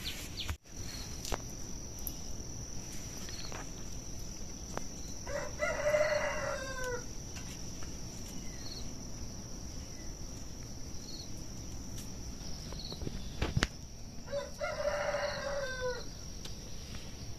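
A rooster crowing twice, about five seconds in and again about nine seconds later, each crow about a second and a half long and dropping in pitch at the end, over a steady high insect drone.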